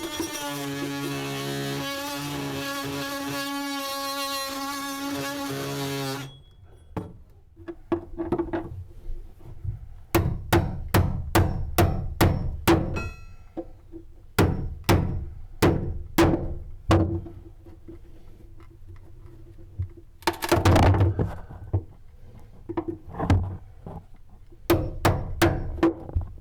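Background music for about the first six seconds, then repeated hammer blows on wood during demolition, in runs of about two strikes a second, with a longer, louder crunching stretch about two-thirds of the way in.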